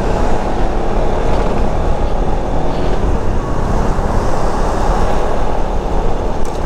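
Steady riding noise from a Yamaha XMAX 300 scooter under way in city traffic: engine and road noise blended into a loud, even rumble with no single event standing out.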